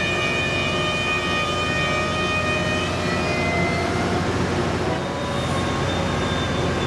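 Train running past with a continuous low rumble. Over it a high, steady tone with several stacked pitches holds until about three seconds in, then fades.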